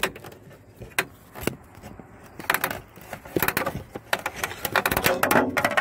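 Plastic dash panel of a 2001 Ford Windstar being pried off with a screwdriver: a few sharp clicks, then a dense run of cracking and creaking in the second half as its stuck retaining clips are forced loose.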